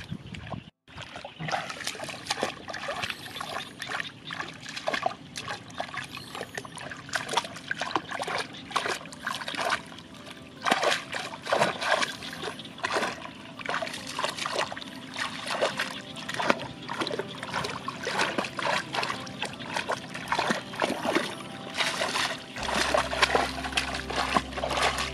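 Hands splashing and scooping through shallow muddy water, stirring up the mud: a long run of irregular splashes and trickles.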